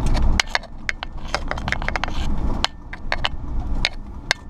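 Irregular clicking and rattling inside a moving vehicle's cab, over a low engine and road rumble that drops off about half a second in. The clicks come quickly, bunched together in the first two seconds, then spaced further apart.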